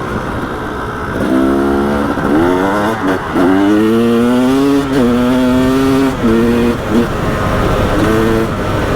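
KTM 300 XC single-cylinder two-stroke engine revving under load while ridden. Its pitch climbs and drops several times, with brief dips as the throttle comes off and goes back on.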